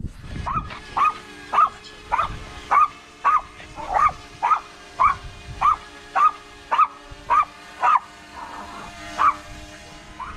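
A dog barking over and over, about two barks a second with a short pause near the end, over the steady whine of a hovering DJI Mavic Mini drone's propellers.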